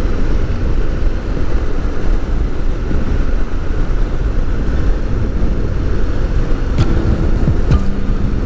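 Adventure motorcycle riding at a steady speed on a gravel road: steady engine and wind noise, heaviest in the low end, from a handlebar or helmet camera.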